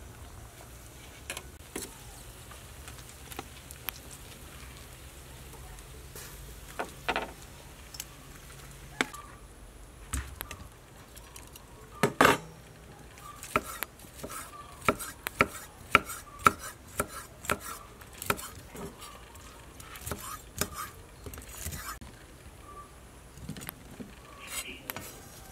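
Metal tongs clicking and knocking against a wire grill rack and a wooden tray as grilled sausages are moved off the grill. The clicks are scattered at first, with one loud knock about halfway and a quick run of clicks after it.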